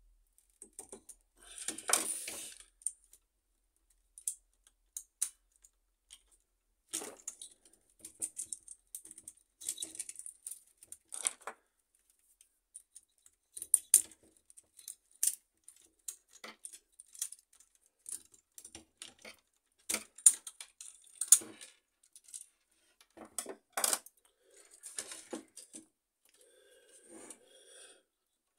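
Irregular short clicks, taps and rattles of plastic wire connectors, cables and a small screwdriver against a laser printer's fuser assembly as the connectors are pried loose and the assembly is handled.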